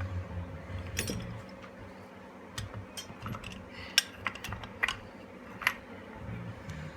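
Steel tools clinking and clicking: a socket and C-clamp being handled and fitted against a jet-pump bearing to press it in, with about eight irregular sharp metal clicks, the loudest about four seconds in.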